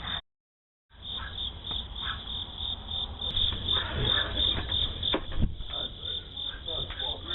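Crickets chirping in a steady, even train of rapid chirps, picked up through a doorbell camera's narrow-band microphone. The audio drops out completely for under a second just after the start.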